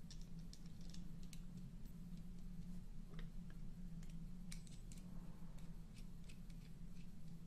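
Light, irregular clicks and ticks of small parts being handled during carburetor reassembly, over a steady low hum.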